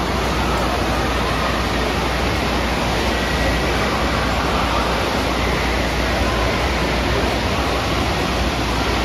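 Wave pool waves breaking and washing up the shallow end, a steady rush of churning water.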